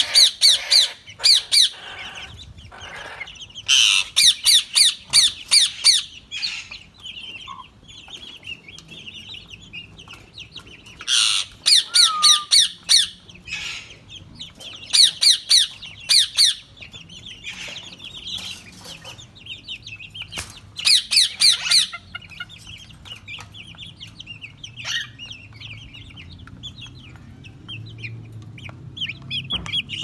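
Alexandrine parakeet screeching in loud bursts of rapid, high, repeated calls, five clusters a second or two long, with quieter chattering between them.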